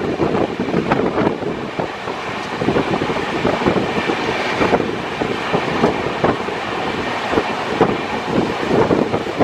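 Express train coaches running at speed on the track: a dense clatter of wheels over rail joints, with wind buffeting the microphone.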